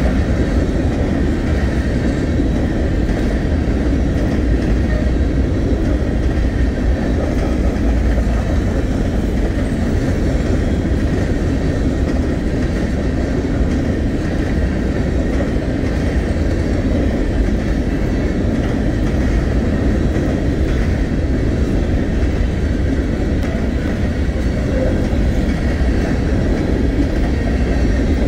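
Empty open-top freight cars of a CSX trash train rolling past: the steady, loud noise of steel wheels running on the rails, with no pause.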